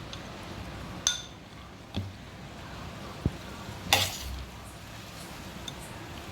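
Utensils clinking against a bowl as masala pori (spiced puffed rice) is served: a few separate clinks, the loudest about four seconds in.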